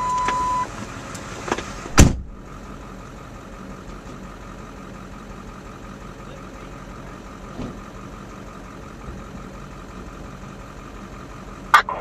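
Vehicle engine idling, heard from inside the cab as a steady low hum. At the start a steady one-second beep sounds, about two seconds in comes one loud sharp clunk after which the background gets quieter, and near the end there is a short sharp click.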